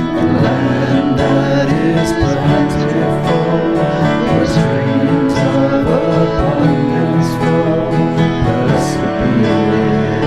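Music led by a plucked acoustic guitar, playing steadily.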